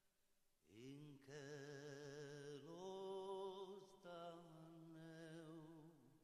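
A man sings a slow melody in Sardinian with wide vibrato. About a second in he slides up into a held note, steps higher near the middle, starts a new phrase, and lets the line fall away near the end.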